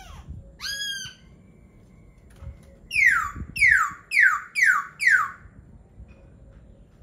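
Laughingthrush singing: one short upslurred note, then a run of five loud whistles, each sliding steeply down in pitch, about two a second.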